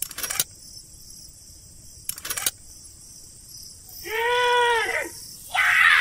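Small toy-tractor parts clicking and rattling twice in quick clusters as a metal hitch pin is fitted. These are followed about four seconds in by a short squeaky call that rises and falls in pitch, then a harsher, noisier squeal.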